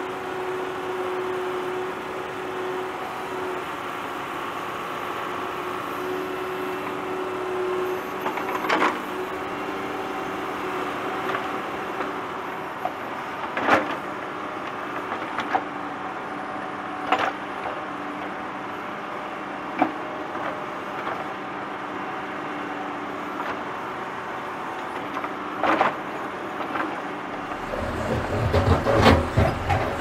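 Tractor engine running steadily while digging, with a sharp knock or clank every few seconds. Near the end a heavier low rumble and clatter comes in.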